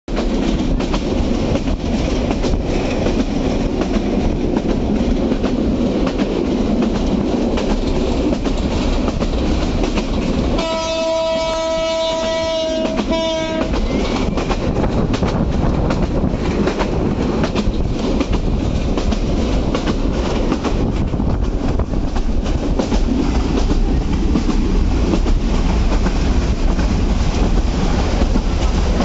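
Karotoa passenger train running, heard from inside a coach: a steady rumble of wheels on the rails. About ten seconds in, a train horn sounds for about three seconds.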